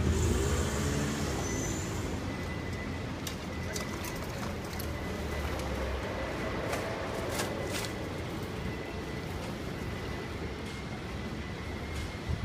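Motor vehicle traffic with a steady low rumble, and a faint steady high tone over it.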